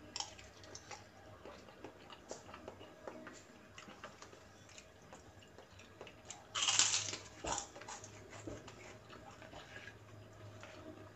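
Close-up eating sounds: chewing fried instant noodles, with small clicks of a metal fork in a plastic bowl. About six and a half seconds in comes one loud crunch as a kerupuk cracker is bitten, followed by a few crisp crunches of chewing.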